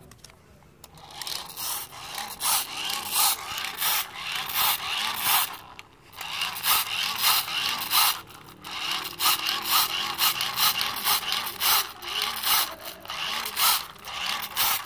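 Handheld battery-powered BBQ blower fan blowing air onto charcoal in a small kettle grill to get the coals glowing: a loud rushing air noise that surges unevenly. It starts about a second in and breaks off briefly about six seconds in.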